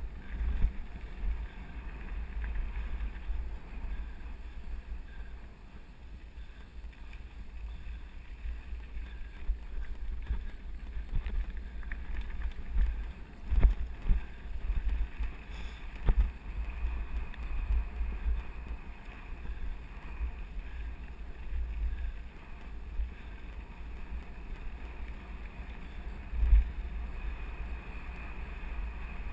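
Wind buffeting an action camera's microphone while it moves along a gravel forest road, a low rumble with frequent small jolts. There are louder thumps from bumps about halfway through and near the end.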